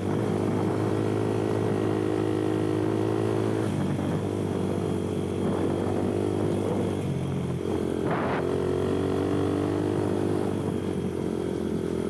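Kuba Black Cat dirt bike engine running steadily on the move, its note stepping down and back up a few times. A brief rushing noise cuts in about eight seconds in.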